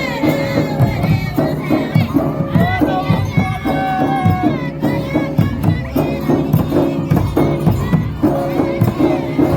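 Traditional Adivasi folk dance music: a steady drum beat with a wavering melody line over it, and crowd noise beneath.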